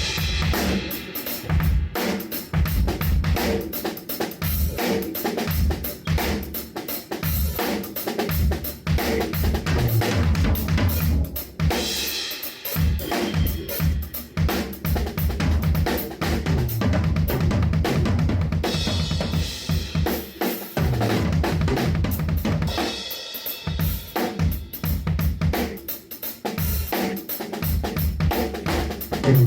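Drum kit played in a steady groove: kick drum, snare and rimshots in dense, regular strokes, with cymbals. The playing thins out briefly a few times before picking up again.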